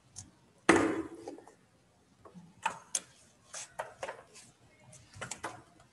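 A series of irregular clicks and knocks, the loudest a thump about a second in.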